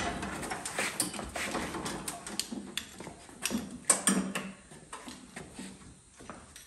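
Irregular clicks, knocks and rattles of welding cables being uncoiled and handled at a Lincoln Electric welder, with a cluster of louder knocks a little before the middle.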